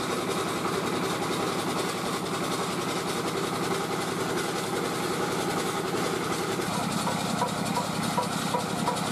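Rice-puffing extruder machine running with a steady drone and a fast, even pulsing, a little stronger in the last couple of seconds.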